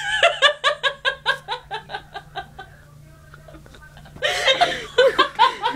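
A person laughing: a run of quick giggles, about five a second, that fades out over two and a half seconds, then more laughter starting about four seconds in.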